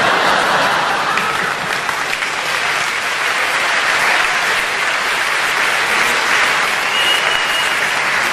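A theatre audience applauding steadily, a sustained round of clapping after a punchline.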